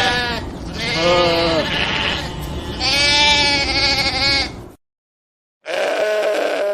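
Sheep bleating: three long, wavering bleats one after another, then a short dead-silent gap and another bleat near the end.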